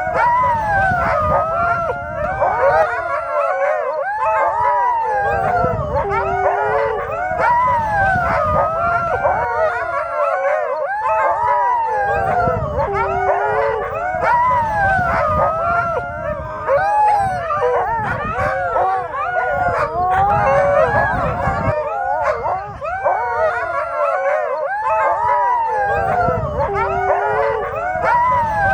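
A pack of sled dogs howling and yipping together, many voices overlapping in rising and falling wails without a break.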